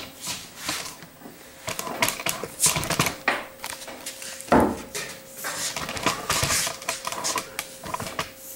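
Irregular clicks, knocks and rustles from close handling, with a louder knock about four and a half seconds in, over a faint steady hum.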